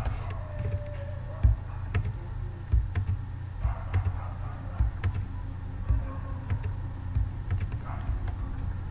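Scattered single keystrokes on a computer keyboard, irregular clicks roughly a second apart, over a low steady hum.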